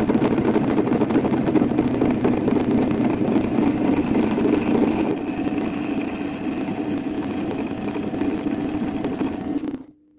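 Metal lathe running, spinning a steel workpiece held between the chuck and a tailstock centre: a steady mechanical drone that eases a little about halfway. It cuts off abruptly just before the end.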